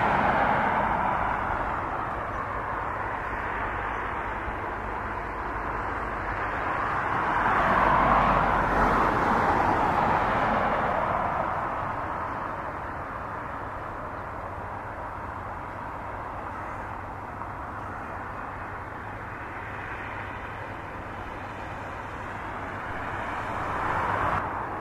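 Jet aircraft engines running on an airport apron: a steady, broad rushing hum that swells around the start and again about eight seconds in, then settles.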